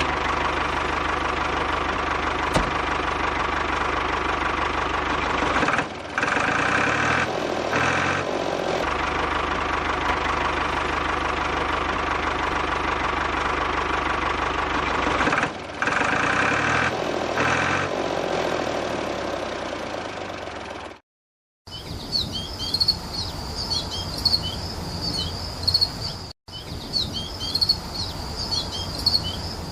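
Small electric toy motor whirring steadily, with two short drop-outs. About two-thirds of the way in it cuts to an uneven rattling run with high chirps over it.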